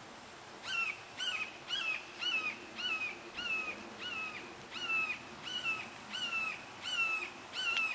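An animal's short, high call repeated evenly about twice a second, starting about a second in.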